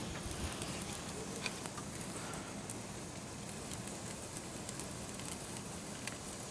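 Flames burning in a Gozney Dome pizza oven: a steady low rush with a few faint crackles.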